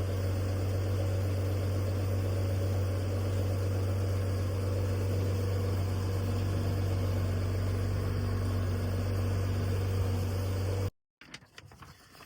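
A steady low mechanical drone that cuts off suddenly about eleven seconds in, followed by a few faint clicks.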